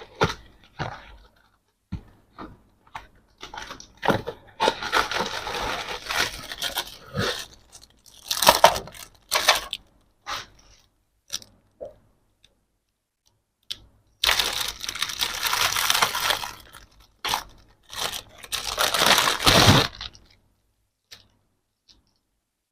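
Toy packaging being handled and torn open: crinkling and tearing in two longer stretches, with scattered clicks and knocks between.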